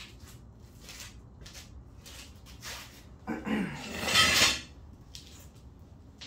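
Hands working a geode in a cracker tool: a few faint clicks and knocks, then about three seconds in a louder, harsh scraping, grinding sound lasting a little over a second.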